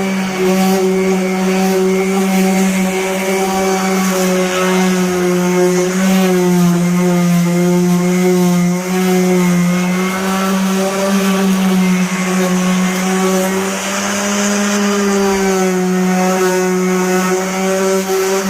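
5-inch sander, fitted with an oversized 6-inch disc, running steadily while sanding the paint on a car body, with a steady motor whine and a hiss from the disc on the paint. The pitch sags a little a few times as the sander is pressed harder.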